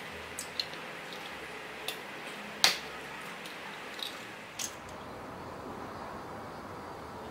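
Eggs being cracked on the rim of a plastic food-chopper bowl: a handful of short sharp taps and clicks of shell on plastic, the loudest about two and a half seconds in, over a faint steady hiss.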